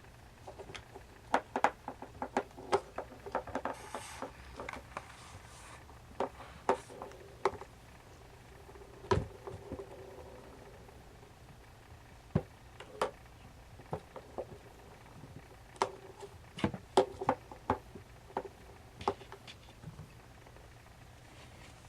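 Siamese kittens playing: scattered light taps and clicks from their scampering, coming in irregular clusters.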